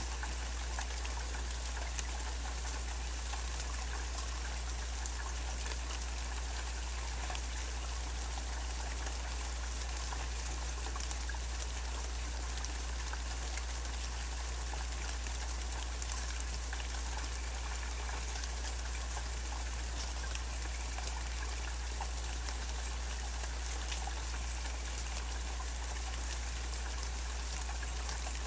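Steady rain falling, an even hiss full of small drop ticks, with a steady low hum underneath.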